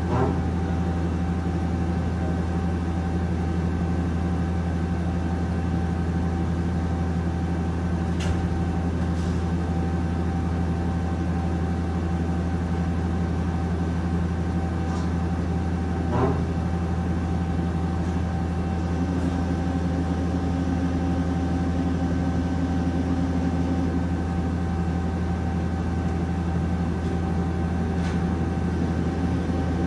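Okuma Captain L-470 CNC lathe running a cycle, its spindle turning the chuck: a steady low hum with a steady high whine over it. A few sharp clicks are scattered through, and a slightly higher hum joins for a few seconds past the middle.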